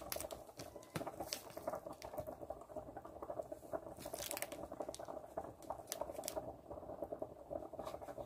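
A plastic sandwich bag full of cheese filling squeezed by hand, with soft squishing and plastic crinkling and a few sharp crackles.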